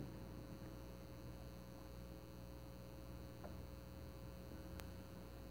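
Faint steady electrical hum and low hiss of the recording's background, after a brief knock right at the start and with one faint click near the end.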